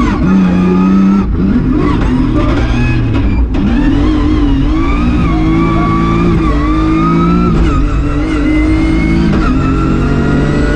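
BMW E36 M3 straight-six engine driven hard, heard from inside the cabin: the revs climb and drop back several times as the car goes through the gears and lifts for the road.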